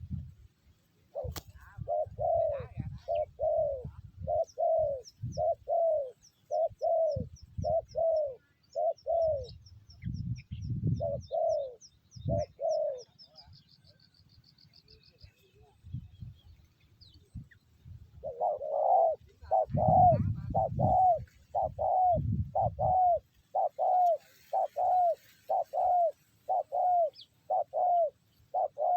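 Spotted doves cooing in a quick, even series of short coos, about two a second, pausing briefly in the middle before starting again. Low rumbles come and go underneath.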